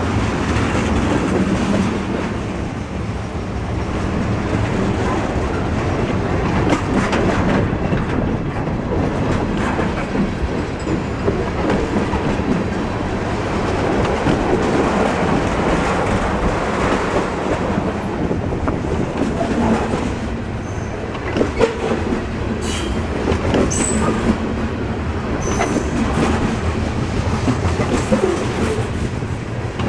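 Freight cars of a passing train rolling by steadily, their wheels clacking over the rail joints, with a few brief faint high wheel squeals in the second half.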